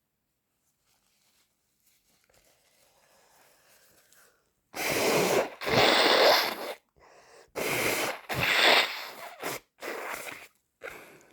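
A person with a cold forcing loud blasts of air through the nose and mouth: two pairs of big blasts, then several smaller ones, after a few seconds of faint breathing.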